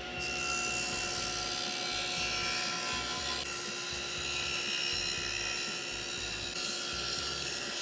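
Stationary power tool running steadily while cutting a dado into solid oak table-leg pieces: a constant motor whine with cutting noise, holding one pitch throughout.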